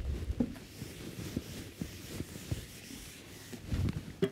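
A whiteboard being wiped clean by hand: irregular low rubbing with soft thumps and a few short knocks.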